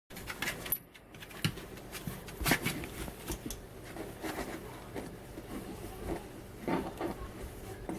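Irregular light scratches and taps, a Pomeranian puppy's paws scrabbling about in a box.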